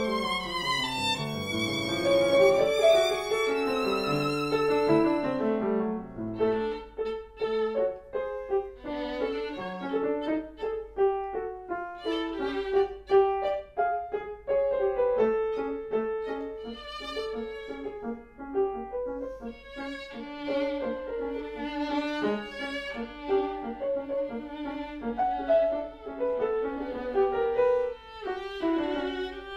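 Violin and piano duo playing a classical piece. A long, singing violin line with vibrato over piano chords turns to shorter, quicker notes from both instruments about six seconds in.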